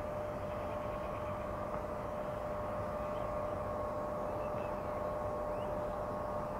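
Steady machinery drone of a coal stacker-reclaimer: a low rumble with a constant whine over it, unchanging throughout.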